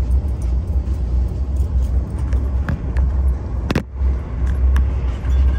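Steady low rumble of a moving LRC passenger rail car heard from inside the cabin, with scattered light clicks and one sharp click about two-thirds of the way through.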